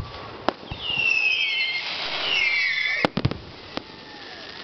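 Fireworks display: sharp bangs of shells bursting at the start and half a second in. Then about two seconds of several shrill whistles gliding downward in pitch, and a quick cluster of bangs about three seconds in.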